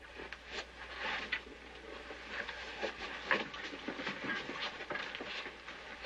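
Rustling of clothes and shoes being handled, with scattered small clicks and knocks.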